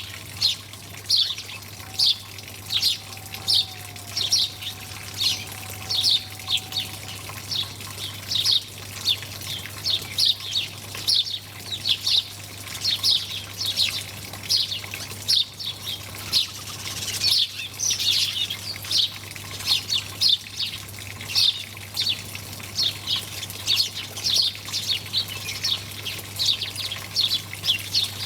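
Small birds chirping continuously, short sharp chirps coming about twice a second in an uneven run.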